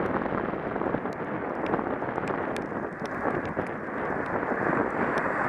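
Wind rushing over the microphone of a bicycle-mounted camera while riding, a steady rough noise with scattered faint ticks.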